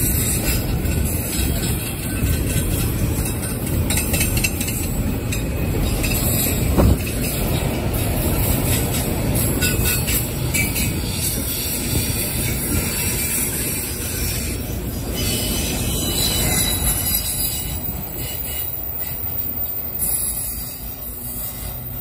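Freight train of autorack cars rolling past: a steady rumble of steel wheels on rail with high-pitched wheel squeal on the curve. There is a single sharp clank about seven seconds in, and the sound fades as the last car moves away near the end.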